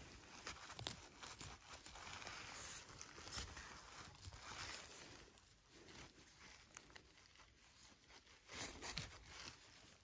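Faint close-up rustling, scraping and small snaps as a knife cuts funnel chanterelles at the base and a hand pulls them out of moss and grass, louder for a moment near the end.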